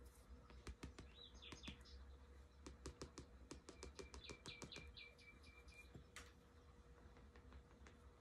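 Faint sound of a pen drawing on sketchbook paper: a run of light taps and short high squeaks as the tip marks and dots the page, over a faint steady hum.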